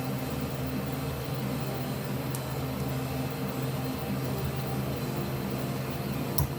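Steady low hum of running shop equipment, with a faint click a couple of seconds in and a single sharp knock near the end.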